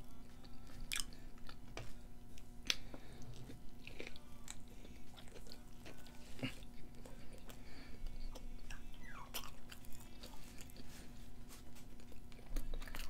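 Close-miked chewing and biting of French fries: wet mouth sounds with short sharp clicks scattered throughout, over a faint steady hum.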